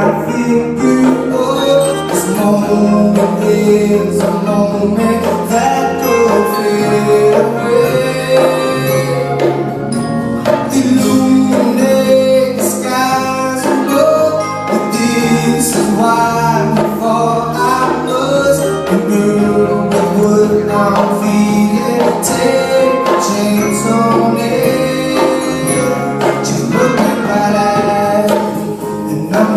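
Music with singing over a steady beat of shaken percussion.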